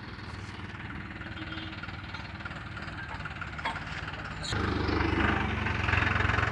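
John Deere 5310 tractor's three-cylinder diesel engine running steadily, much louder from about four and a half seconds in.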